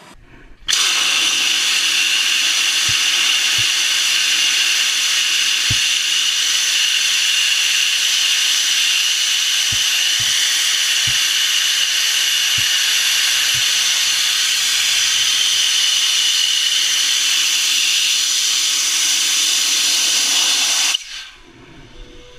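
Hydrogen peroxide rocket belt (jetpack) firing: a loud, steady, high-pitched hissing scream that starts abruptly about a second in and cuts off suddenly some twenty seconds later as the thrust is shut down.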